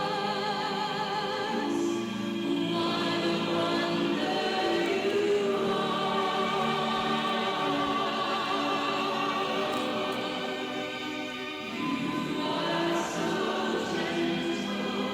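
Choir singing a slow sustained hymn with vibrato, in several held phrases with a brief break near the end.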